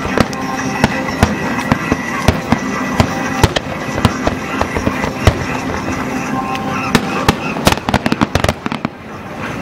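Aerial fireworks shells bursting, with repeated sharp bangs and, about three-quarters of the way through, a dense flurry of rapid crackling reports.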